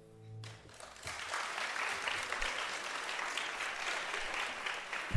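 The last chord of a classical guitar piece dies away, and audience applause starts about half a second in and goes on steadily.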